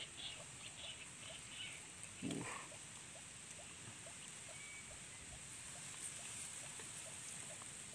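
Faint rustling and small clicks of hands handling a fish in dry grass while working a deeply swallowed hook out of its mouth, over a steady high hiss. A short rising sound comes about two seconds in.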